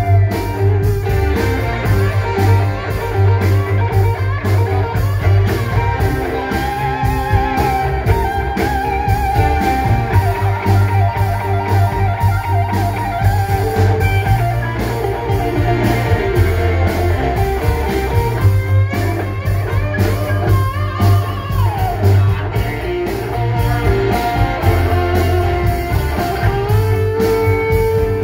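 Live rock band playing an instrumental passage: a guitar lead with bent, wavering held notes over bass and a steady drum beat.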